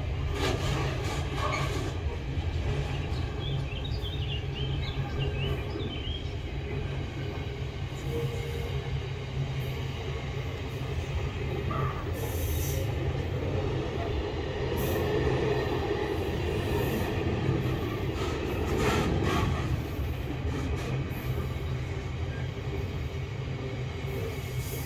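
Container freight train's wagons rolling over a steel girder bridge: a steady low rumble with repeated wheel knocks and clatter, and a brief wheel squeal about twelve seconds in.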